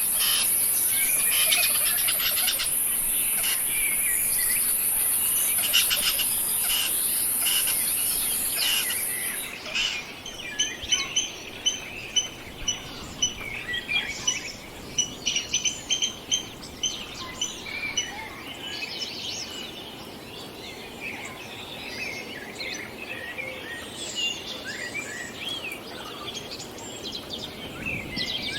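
Outdoor nature ambience: birds chirping and calling over a steady high insect buzz, which cuts off about ten seconds in. After that come runs of quick, evenly repeated chirps, with more scattered calls to the end.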